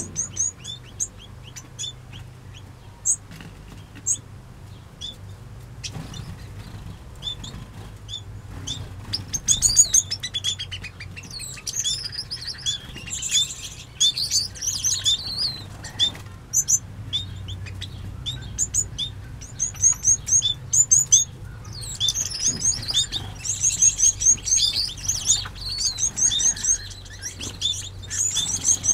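Many small aviary birds chirping, short high calls, scattered at first and becoming a busy, overlapping chorus from about nine seconds in.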